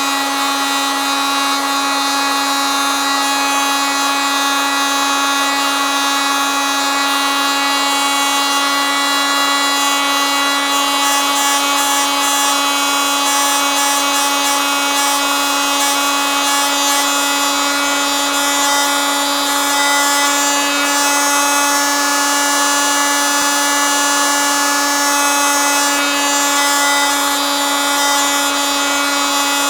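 Oscillating multitool running steadily: a constant buzz at one fixed pitch with a hiss over it.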